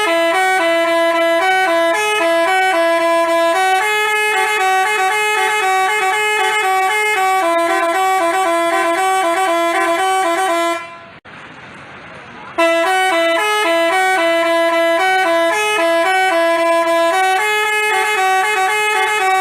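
Basuri telolet bus horn playing a melody of several tones at once that step up and down. It breaks off about eleven seconds in and starts up again a second and a half later.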